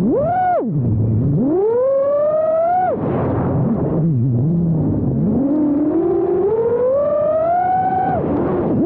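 5-inch FPV freestyle quadcopter's brushless motors whining, the pitch swooping up and down with the throttle: a quick punch-up at the start, a climb then a sharp drop about three seconds in, a low stretch, then a long slow rise that falls off sharply near the end.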